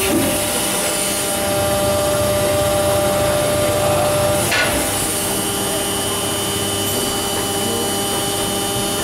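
Injection molding machine running during a mold test: a steady mechanical hum with several steady tones. About halfway through there is a brief rush of noise, and one of the steady tones stops at the same moment.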